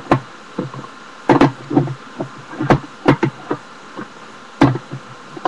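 Plastic eyeshadow palette cases being handled: a string of about ten irregular sharp clicks and light knocks as cases are shut, set down and picked up.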